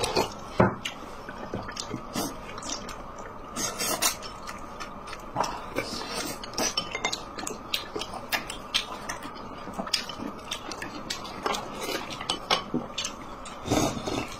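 Close-up eating sounds: a mouthful of dumpling being chewed, with many small wet mouth clicks and light clicks of chopsticks on the dishes. Near the end there is a louder sip of soup from a bowl.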